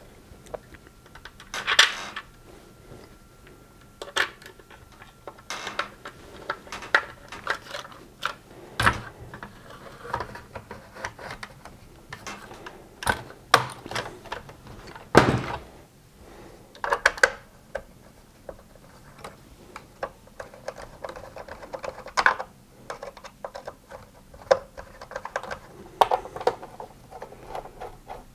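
Gtech AirRam cordless vacuum's plastic casing being handled and reassembled by hand: irregular clicks, knocks and rattles of plastic parts and screws on the workbench, with two louder thuds about 9 and 15 seconds in.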